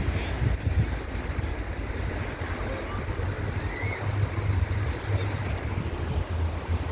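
Sea waves washing on the shore, with wind buffeting the microphone in an uneven low rumble.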